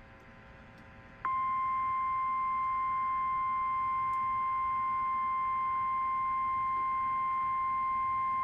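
NOAA Weather Radio warning alarm tone: a single steady 1050 Hz tone that starts about a second in and holds unbroken, signalling the weekly test of the weather radio alert system.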